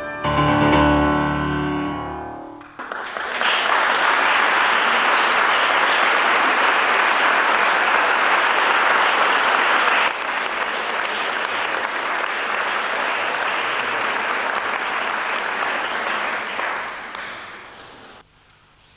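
Grand piano closing on a loud chord that rings for about two seconds, followed by audience applause that holds steady for about fifteen seconds, then fades and stops.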